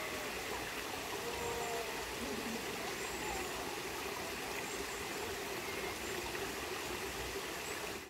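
Shallow stream trickling over and between stones in a rocky bed, a steady rush of water.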